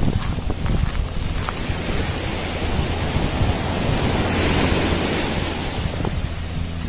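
Small waves washing up onto a sandy beach, one wash swelling and fading about four to five seconds in, with wind buffeting the microphone throughout.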